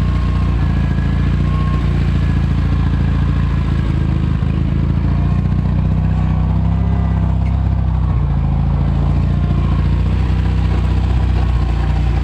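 Tractor engine running steadily at an even speed, a low constant drone.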